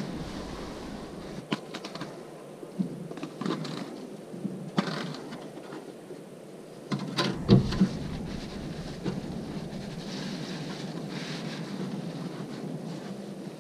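Paper towel rustling as it is pulled off a roll and handled, then a plastic tray handled as worms are tipped onto the paper, with scattered light knocks and a louder thump about seven and a half seconds in.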